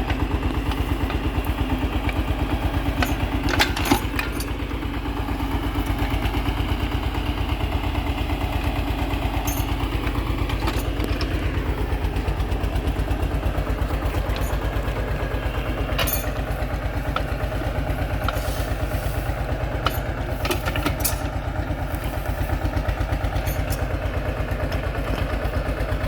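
Eicher 242's 25 HP single-cylinder diesel engine running under the backhoe's work with a steady, even beat, its sound like a diesel Bullet motorcycle. A few sharp knocks come about four seconds in and again near sixteen and twenty-one seconds.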